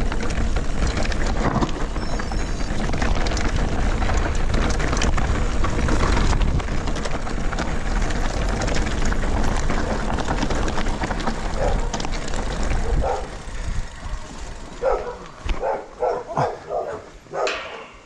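Mountain bike's tyres rolling and rattling down a grassy path and stony track, with wind rumbling on the camera microphone; the noise eases about thirteen seconds in as the bike slows. Near the end a dog barks about six times in quick succession.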